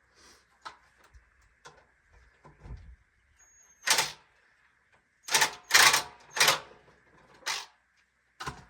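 About eight irregular knocks and clatters of a tool against the hard plastic parts of a Polywood rocking chair as it is handled during assembly. The loudest are one about four seconds in and a quick cluster a little later.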